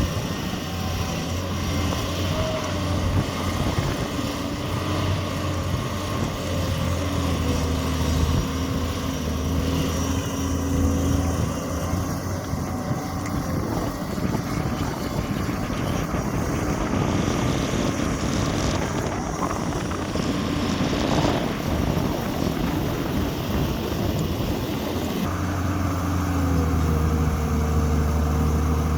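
Tata Hitachi 200EX excavator's diesel engine running steadily, its note shifting a little in pitch. Through the middle the sound turns rougher and noisier, and the engine hum comes back stronger near the end.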